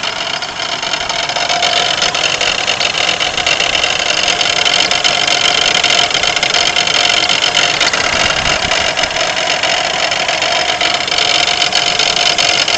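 1992 Pontiac Grand Am's 3.3-litre V6 engine running steadily with a grinding rattle, which the owner thinks is the harmonic balancer but is not certain. It gets a little louder about a second in.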